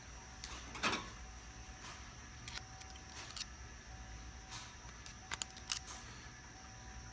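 Scattered light clicks and knocks of small metal tools and parts being handled, over a faint steady hum; there is no drilling in this stretch.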